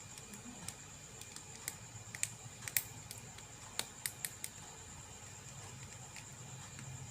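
Scattered light metallic clicks and ticks of a precision Phillips screwdriver and small tools working the tiny screws of an iPhone 7's earpiece speaker cover, most of them bunched in the middle, over a steady faint hum and high whine.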